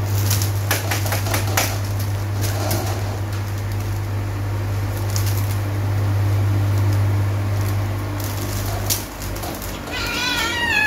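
Two kittens play-fighting in a wicker basket: scattered clicks, scratches and rustles of claws and bodies on the wicker over a steady low hum that drops away about nine seconds in. Near the end a kitten meows.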